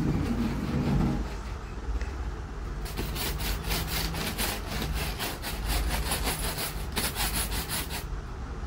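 Wooden candy mould: a slatted wooden press is worked over a grooved wooden board, wood rubbing on wood. From about three seconds in it makes a quick run of scraping strokes that stops near the end, as the ropes of soft sugar candy are pressed into small lollipop pieces.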